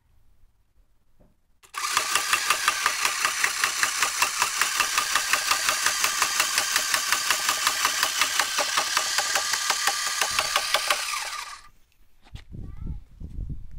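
An electric motor spins the weighted eccentric rotor of a homemade centrifugal-drive cart, and the wooden frame rattles and knocks on the floor with a regular beat about five times a second. It starts about two seconds in and stops abruptly near the end, followed by a few low thumps.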